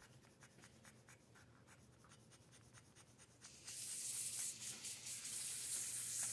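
Faint, scattered soft clicks of day-old French bulldog puppies suckling at their mother. About halfway through, a steady hiss comes in suddenly and holds.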